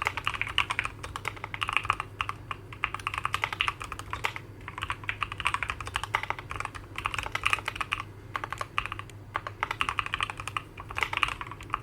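Typing on a Keychron Q11 mechanical keyboard fitted with Gateron Northpole switches and ABS single-shot keycaps: quick runs of light, rounded-sounding keystrokes with a very quiet bottom-out, broken by a few short pauses.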